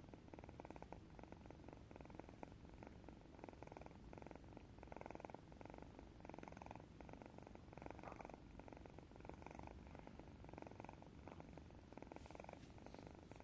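A cat snoring faintly: a purr-like rattle that swells and fades with each breath, roughly one breath every second and a half.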